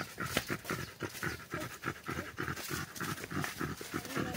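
Beagle panting in quick, even breaths.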